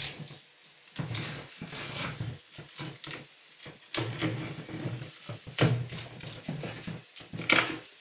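A utility knife slicing the packing tape on a cardboard shipping box, with tape tearing and the cardboard flaps scraping and knocking as the box is opened: irregular scrapes and knocks.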